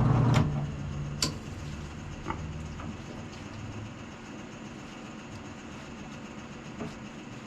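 Drill press motor humming, then switched off with a click about half a second in, its hum fading away over the next few seconds. A few light clicks and knocks follow, with the first two the sharpest.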